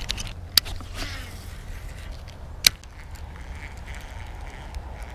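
Two sharp clicks about two seconds apart, with a few smaller ticks, as a baitcasting reel and rod are handled, over a steady low rumble.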